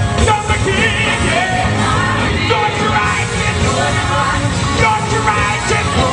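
Gospel choir singing with a live band behind it, loud and continuous.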